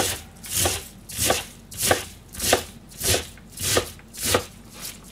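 Chef's knife cutting through cabbage leaves on a cutting board, a steady rhythm of about eight strokes, a little under two a second, each a crisp crunch through the leaves.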